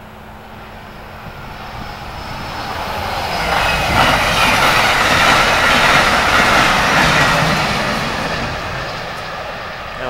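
Amtrak electric passenger train passing at speed: the rushing rumble of wheels on rail builds over the first few seconds, is loudest about halfway through, then fades as the train moves away.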